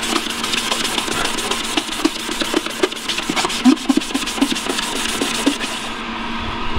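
A grey Scotch-Brite pad scrubbed rapidly back and forth over freshly painted, high-gloss engine-bay metal, keying the paint to knock the shine off it. The scrubbing stops about six seconds in.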